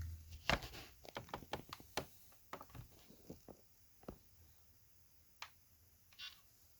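A quick run of small, sharp clicks and taps over the first two and a half seconds or so, then a few scattered clicks, typical of hands handling a laptop and its keyboard.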